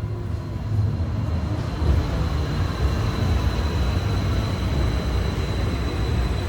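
Steady low rumble and hiss of a moving vehicle, with a faint steady high-pitched whine over it.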